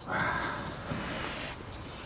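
A person taking a bite of tteokbokki: a short breathy mouth sound lasting about half a second at the start, then quiet eating.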